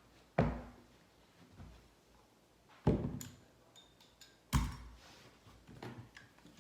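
Three sharp knocks from carpet-fitting work on a staircase, one about every two seconds, each dying away quickly, with a few fainter taps near the end.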